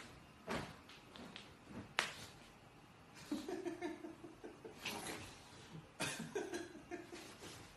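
Quiet human laughter in breathy, pulsing bursts during the second half, with a single sharp smack about two seconds in.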